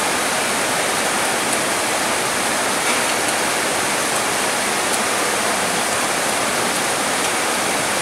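Steady rain falling on palm trees: an even hiss without a break.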